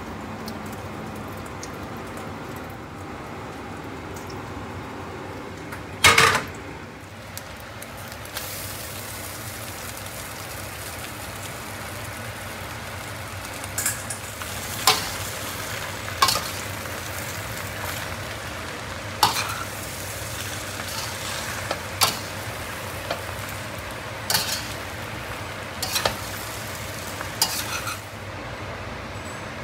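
Thin rice noodles sizzling in a stainless steel wok while a metal spatula stirs and tosses them. The spatula clinks sharply against the pan every second or two in the second half, with one loud clank about six seconds in.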